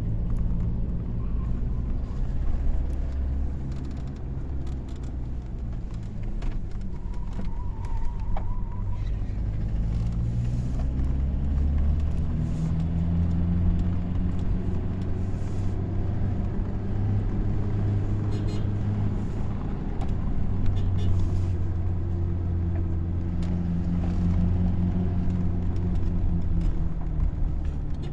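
Toyota Hilux 1GD-FTV four-cylinder turbodiesel running with its number 4 injector just refitted. Engine speed climbs about a third of the way in, eases back past the middle, then rises again.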